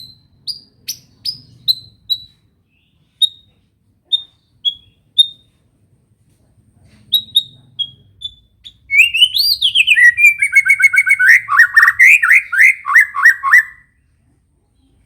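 White-rumped shama singing, its song filled with learned canary phrases. It gives short, high single chirps spaced about half a second apart, then from about nine seconds in a loud, fast trill of rapidly repeated sweeping notes lasting about five seconds.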